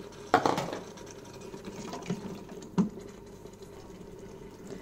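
A spatula stirring carrot slices into tomatoes simmering on sauté in an Instant Pot's stainless steel inner pot: a sharp scrape or knock about a third of a second in and a couple of softer knocks later, over faint wet bubbling.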